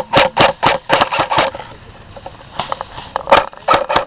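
Airsoft guns firing: a quick string of shots, about five a second for the first second and a half, then a few more scattered shots later.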